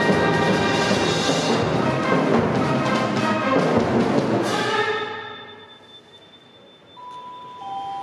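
High-school marching band playing loudly: brass with drums, closing on a cymbal crash about four and a half seconds in that rings away. After a short hush, a few long ringing mallet-percussion notes begin near the end.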